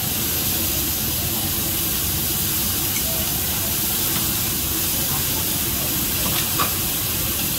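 Food sizzling on a teppanyaki griddle, a steady hiss, with a faint tap near the end.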